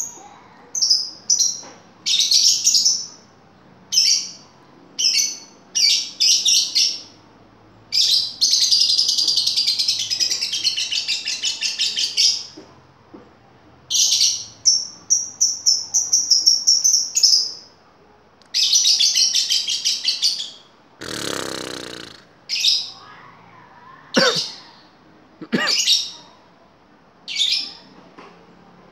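Lovebird chattering in repeated bouts of shrill chirps, several of them long rapid trills lasting two to four seconds. A brief rustling noise comes about two-thirds of the way through.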